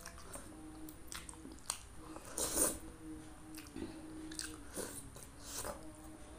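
Quiet close-miked eating of spicy noodle soup: soft chewing and small slurping mouth sounds, with faint clicks of the spoon and fork, and one louder airy slurp about two and a half seconds in.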